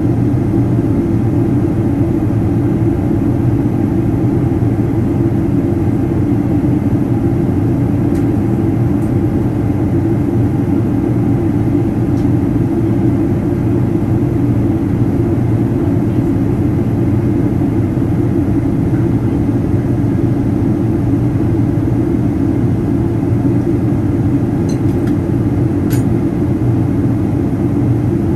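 Steady low drone of a Boeing 777-200ER's turbofan engines and rushing air, heard inside the cabin at a window seat over the wing during descent.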